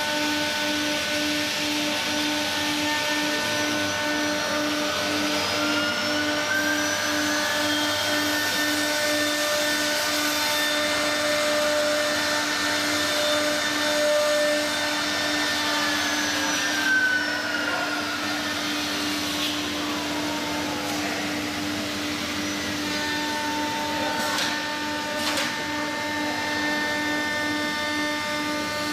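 Three-spindle wood-carving CNC router running: a steady spindle whine and hiss, with motor tones that rise and fall in pitch as the axes speed up and slow down, and a couple of sharp clicks near the end.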